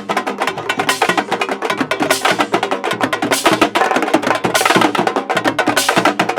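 Fast, dense percussion music: drums struck in rapid strokes over low notes.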